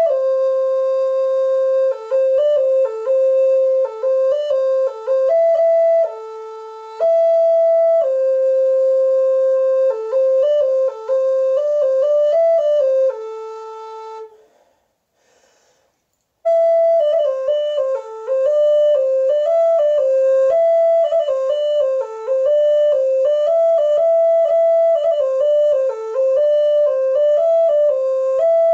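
Background music: a solo melody on a flute-like wind instrument, moving in short stepwise notes. It stops for about two seconds midway, then picks up again.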